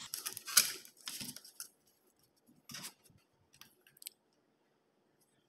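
Thin aluminum sheet cut from a soda can crinkling and rustling as it is handled for the first second and a half. A plastic clipboard is then laid on it, with a light knock near the middle and a few small clicks just after.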